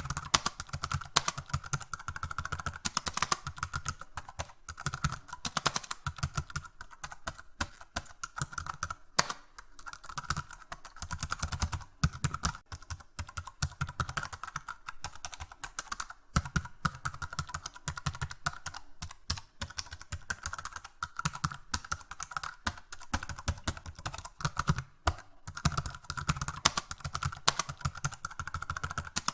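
Typing on a keyboard: a steady run of rapid, irregular keystroke clicks.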